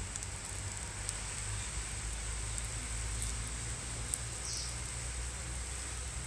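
Steady low hum and faint hiss of a recording microphone's background noise, with a thin high tone and a few faint, brief clicks.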